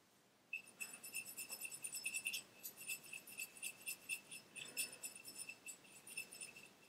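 Paintbrush stirring satin varnish and water in a small metal palette cup, clinking rapidly and irregularly against the metal so that the cup rings with a light, high ping.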